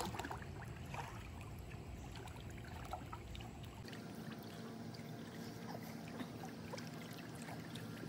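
Pool water sloshing and trickling quietly as people wade and swim through it, with small scattered splashes.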